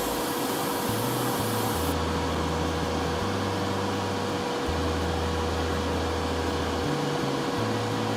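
Steady rushing air noise with a thin steady hum, like a blower running.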